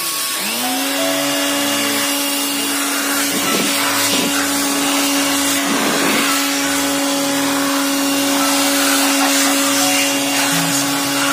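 Handheld electric air blower switching on, its motor winding up within half a second to a steady whine over a loud rush of air, blowing dust out of an inverter's chassis and transformer.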